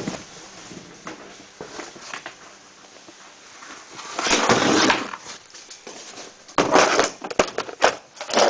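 Rummaging through a tool box: scattered clicks and knocks, with two louder stretches of rustling and clattering about halfway through and again near the end, as the electrical box is opened and its tools handled.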